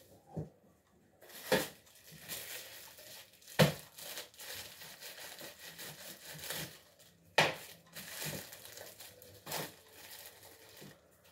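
Papery garlic skins crackling and rustling as garlic bulbs are peeled and broken apart by hand, with several sharp knocks a couple of seconds apart as a knife cuts the bulbs on a cutting board.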